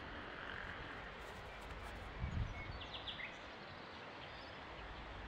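Quiet forest ambience with a few faint, short bird chirps near the middle, and one low thump about two seconds in.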